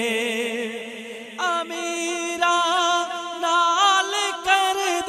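Naat singing: a man's voice holds the last note of the refrain with a wavering vibrato. About a second and a half in, a new wordless vocal melody starts, drawn out and melismatic.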